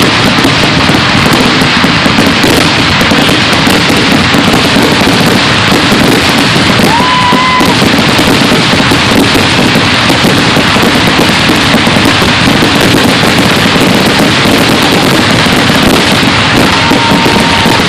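Fireworks finale barrage: a loud, unbroken roll of bursts and crackle with no gaps. A short whistle rises and holds about seven seconds in, and another steady whistle sounds near the end.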